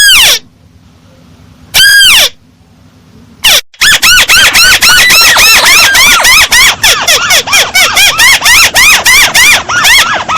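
Recorded calls of a paddy-field crake (tikusan sawah): loud arched whistled notes, one at the start and another about two seconds in, then from about three and a half seconds a fast run of the same notes, about five a second.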